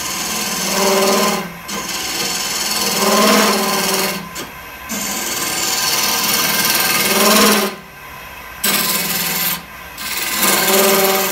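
Spindle gouge hollowing the end grain of a chokecherry goblet blank spinning on a wood lathe: about five cutting passes, each fed in and pulled out, with short breaks between them. A steady buzzing chatter rides on each cut from the blank vibrating, because the work is out of balance.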